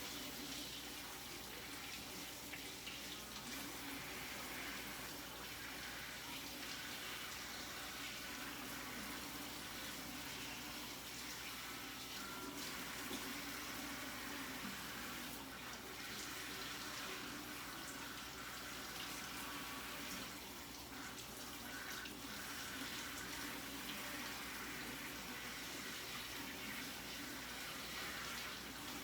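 Kitchen tap running steadily into a sink while bok choy leaves are rinsed one by one under it, with small knocks of handling.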